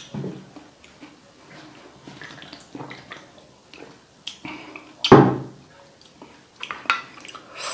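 A person eating and drinking: wet mouth clicks and chewing, sips from a drink can, and one loud sudden sound about five seconds in.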